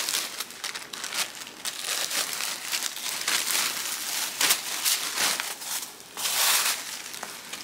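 Plastic packaging crinkling and rustling as a garment is pulled out of a poly mailer bag and its clear plastic wrapper, with a louder burst of crinkling about six seconds in.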